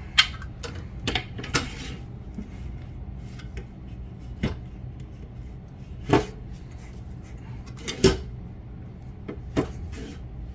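Steady low hum of a line-spooling setup winding orange hollow-core braid onto a big-game Avet reel. Several sharp clicks and knocks fall a second or two apart.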